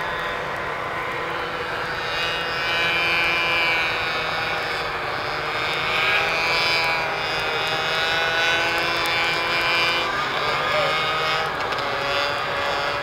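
Several vintage snowmobile engines running together, a steady mechanical drone of many overlapping pitches that drift slowly up and down.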